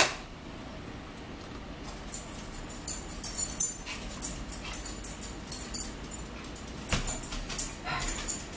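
Dog's collar tags jingling in repeated short bursts, after a sharp knock at the very start.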